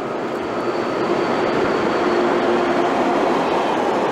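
Dutch NS electric locomotive and its intercity coaches passing close by at speed: the rush of wheels on rail grows louder for about the first second and a half, then holds steady as the coaches go by.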